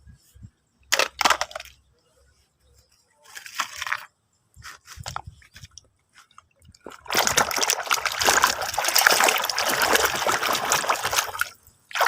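Water splashing over a plastic toy excavator as it is washed: a few short splashes and knocks, then a steady loud gush of water for about four seconds that stops shortly before the end.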